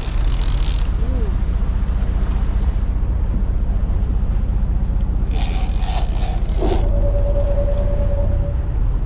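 Sportfishing boat's engine running with a steady low rumble under wind on the open sea, with hissing gusts of wind or spray just after the start and again around five to seven seconds in. A thin steady whine sounds near the end.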